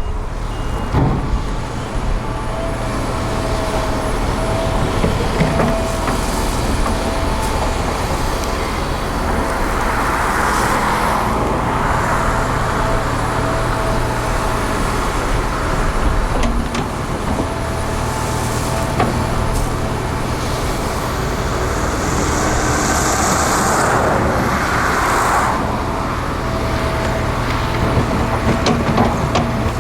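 Diesel construction machinery running at work: a steady low engine hum with a thin whine that comes and goes. Louder rushing noise rises over it twice, about ten seconds in and again a little past twenty seconds.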